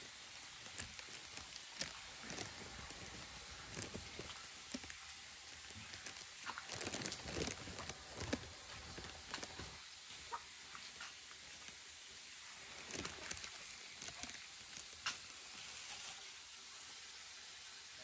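Faint, irregular footsteps with soft taps and rustles, thickest near the middle, over a low hiss.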